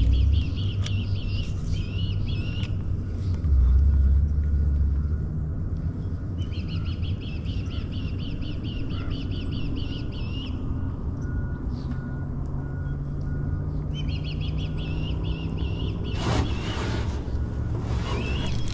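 A songbird singing a rapid, dry trill three times, a few seconds apart, over a steady low rumble that swells briefly about four seconds in. A short rushing noise comes near the end.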